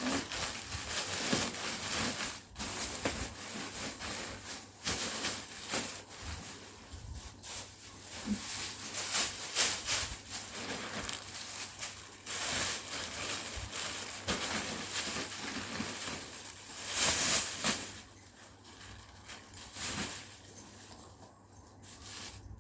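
Irregular rustling and crinkling of bags and their packaging being handled, coming in many short uneven bursts.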